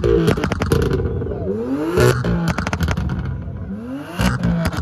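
BMW M4's twin-turbo straight-six engine revved hard twice, each rev climbing quickly and cut off with a string of exhaust crackles and pops; more crackling comes from the rev just before, right at the start.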